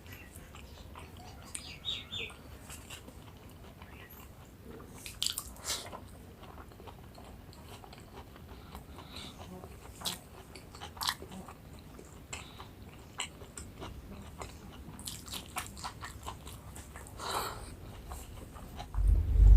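Close-miked eating: chewing and biting of food, with scattered short, sharp crunches. A loud low thud comes near the end.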